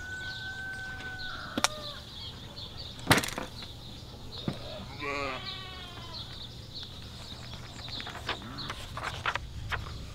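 Rural outdoor ambience: small birds chirping steadily, and a farm animal bleating once with a wavering call about five seconds in. Over it come sharp clicks and a loud thump about three seconds in, then light clicks and rustles near the end, from a briefcase being handled and a large book of papers being opened and leafed on a table.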